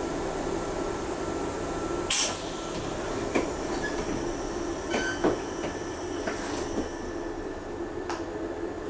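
Kintetsu limited express train standing at a platform with a steady hum, and a loud knock about two seconds in that fits its doors shutting, followed by a few lighter clicks and knocks.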